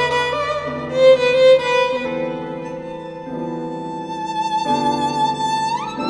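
Violin playing slow, sustained notes over lower held notes that change every second or so; near the end the violin slides up to a higher note with vibrato.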